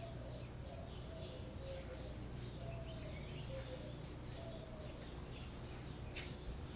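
Faint, short high-pitched bird chirps repeating over a steady low hum, with a few sharp clicks.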